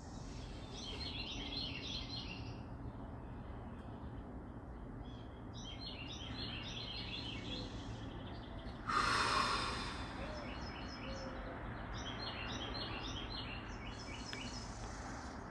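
A woman's slow breathing during a paced 10-5-10 breathing exercise, with one loud rush of breath about nine seconds in. Songbirds chirp in short repeated bouts over a steady low background rumble.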